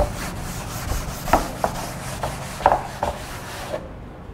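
Chalkboard eraser rubbed back and forth across a wooden blackboard, wiping off chalk, with a few sharper strokes along the way. The rubbing stops shortly before the end.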